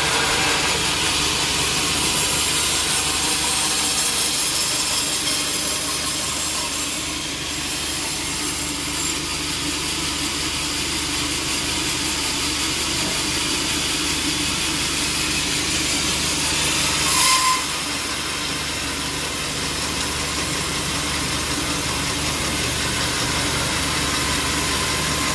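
Sawmill saw and its engine running steadily while cutting wood: a constant engine hum under an even hiss. About two-thirds of the way through comes a brief, louder squeal.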